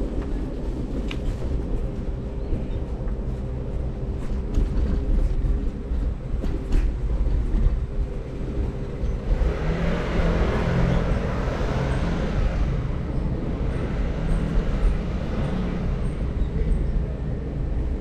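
Steady low rumble of wind and road noise from riding an electric kick scooter, with a faint steady whine in the first half. A louder rushing noise swells about halfway through and fades a few seconds later.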